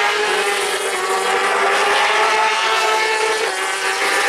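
Superbike racing motorcycle engines running at high revs, several overlapping, steady and continuous with their pitch drifting slightly.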